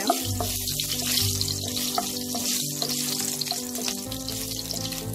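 Dried red chillies and bay leaves sizzling in hot mustard oil as a wooden spatula stirs them in the pan, with background music playing over it.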